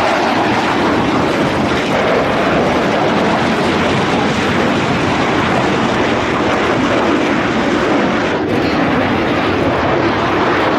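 JF-17 Thunder fighter's single RD-93 afterburning turbofan in a flying display, making loud, steady jet noise without a break.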